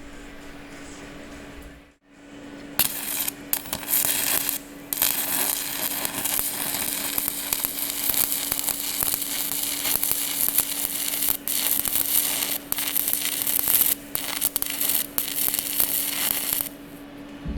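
Welding arc crackling and sizzling in a long steady run that starts about three seconds in and stops shortly before the end, broken by a few short pauses, over a steady low hum. This is the weld being laid on the driveshaft.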